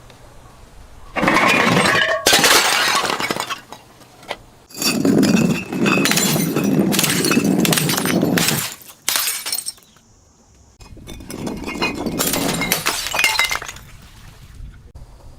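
Glass bottles being smashed and crushed, the shards crackling and clinking in several loud bouts, with a short lull about two-thirds of the way through.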